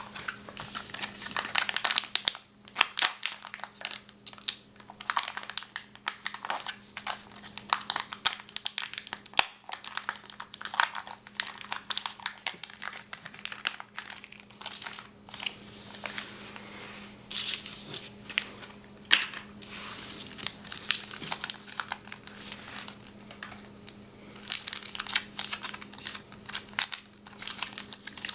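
A Kinder Surprise egg's wrapper being crinkled and torn as it is unwrapped by hand: dense, irregular crackling that goes on in spells with short pauses.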